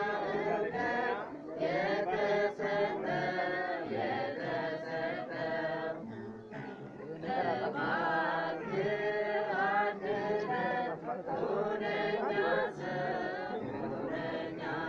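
Voices chanting a melodic sung chant together, in long phrases broken by short pauses.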